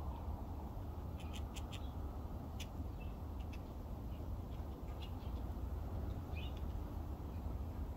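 Steady low outdoor rumble with faint, scattered small-bird chirps and short clicks, one small cluster about a second in and a few more spread through.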